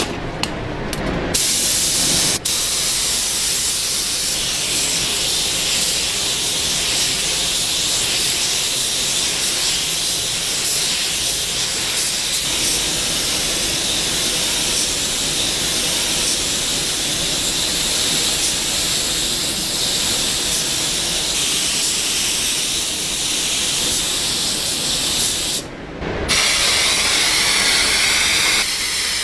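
A loud, steady hiss that breaks off for a moment about three quarters of the way through, then carries on.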